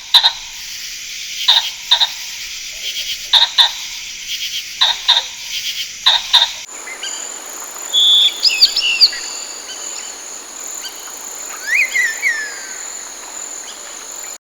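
Steady high-pitched insect chorus with short chirps repeating about every second and a half; about halfway through it cuts to a different background with a few quick bird chirps.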